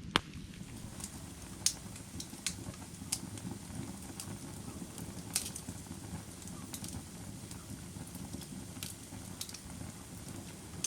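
Firewood burning: a steady low rumble of flame with irregular sharp pops and crackles from the hot wood, about eight in all, the loudest right at the start.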